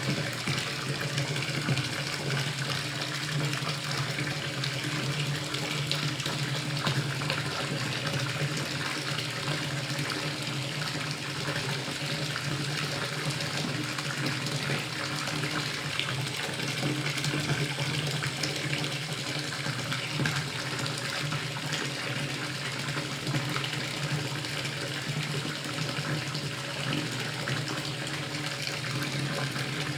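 Water running steadily from a tap into a filling bathtub, a constant splashing rush with a low steady hum beneath it.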